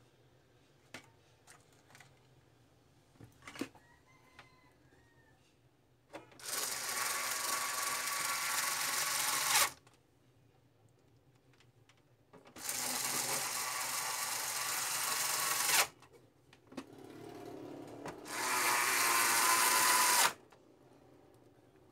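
A small motor run three times in bursts of about two to three seconds each, with light clicks in the quiet gaps between them.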